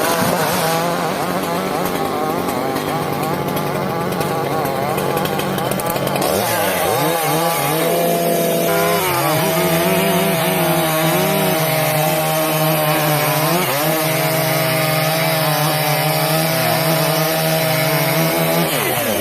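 Two-stroke chainsaw running hard, its engine note dipping and recovering as it cuts into wood. The pitch wavers and sags about a third of the way in, then holds high and steady with brief dips.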